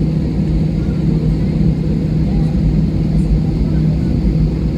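Steady cabin noise inside a jet airliner on the ground, its engines running at low power: an even low hum over a rumble, with no change in level.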